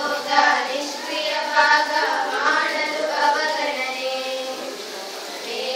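A group of schoolchildren singing together, with notes held for about a second at a time.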